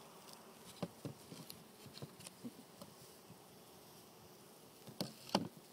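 Honeybees buzzing around an open hive, with scattered light clicks and knocks from the hive equipment being handled; two louder knocks come near the end.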